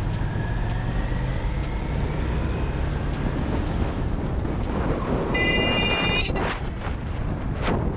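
Cruiser motorcycle's engine running under way, with wind rushing over the microphone. About five seconds in, a horn sounds once for about a second, followed by a few gusts of wind on the microphone.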